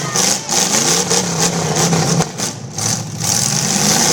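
Demolition derby cars' engines revving in the mud, the engine note holding, then dropping away briefly just past the middle before picking up again.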